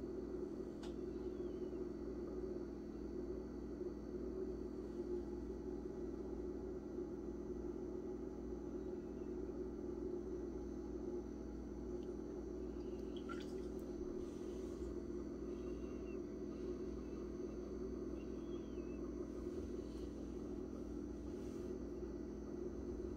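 Steady low hum of room noise, with a couple of faint clicks, one about a second in and one near the middle.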